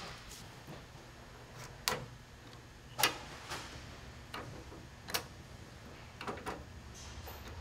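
Hand rivet gun squeezed in repeated strokes to pull a mandrel and roll the rivet of a snap fastener, giving a series of sharp metallic clicks about once a second. The loudest click comes about three seconds in.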